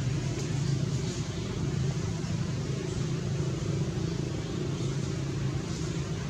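Steady low rumble of a running engine, even throughout.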